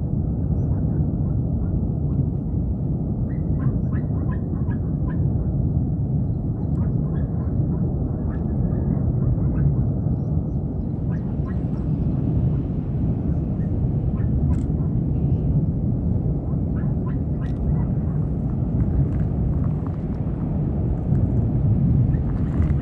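Deep, steady rumble of the erupting Tajogaite volcano, with faint short crackles scattered over it.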